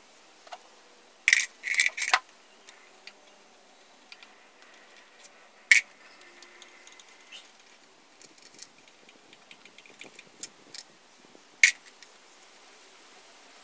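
Sharp metallic clinks of a screwdriver and small metal parts against a motorcycle engine's clutch cover: a quick run of four clinks about a second in, single clinks near six seconds and near the end, and lighter ticks between.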